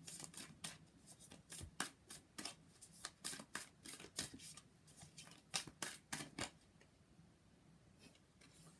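A deck of oracle cards being shuffled overhand by hand: a run of quick, soft card flicks and taps, about two to three a second, that dies away about two-thirds of the way through.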